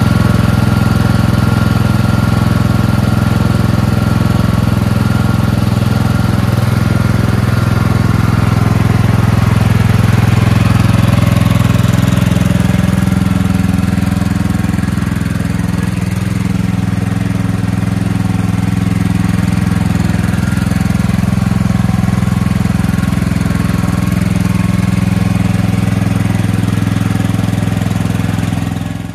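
Small single- or twin-cylinder gasoline engine running steadily at constant speed.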